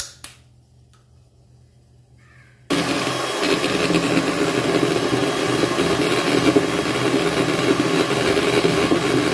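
Electric hand mixer switched on about two and a half seconds in, then running steadily as its beaters whip eggs in a stainless steel bowl.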